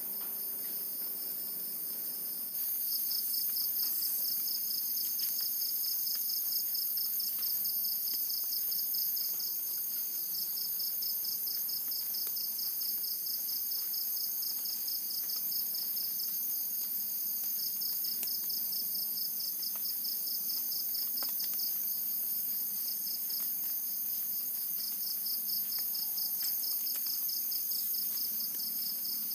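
Night chorus of tropical forest insects: a steady high-pitched shrill, joined about two and a half seconds in by a fast, evenly pulsing trill that carries on throughout.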